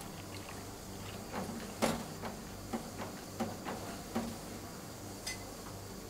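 Glass milk bottles clinking against each other over a steady low hum: a run of light clinks between about one and four seconds in, the loudest near the second, then a single ringing clink near the end.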